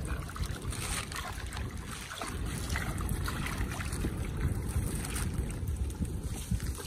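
Wind rumbling on the microphone over water lapping and splashing around a small raft of floating plastic drums.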